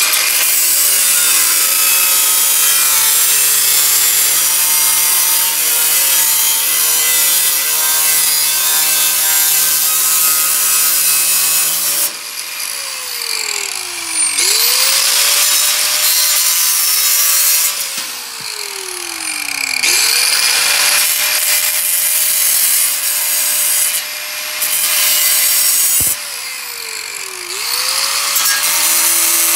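A power cutting tool cutting through the sheet-metal lip of a replacement floor pan, trimming it so the pan sits flush. The motor tone dips and recovers three times, and the cutting noise drops during each dip.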